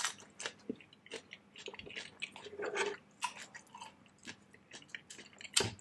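Close-up mouth sounds of a person chewing a mouthful of food: scattered wet clicks and lip smacks, with a sharper click near the end.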